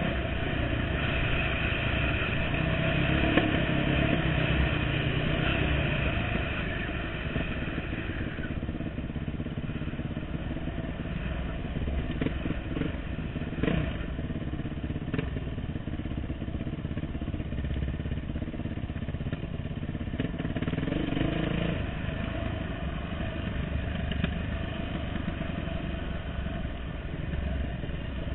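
Dirt bike engine running as it rides along a dirt trail, on more throttle for the first several seconds, then easing off, and picking up again about three-quarters of the way through. A few short sharp knocks sound near the middle.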